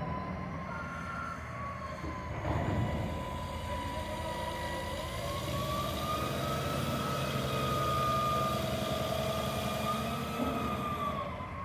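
Container reach stacker working as it lifts a tank container: its diesel engine runs steadily under load, with a high whine that slowly wavers up and down in pitch.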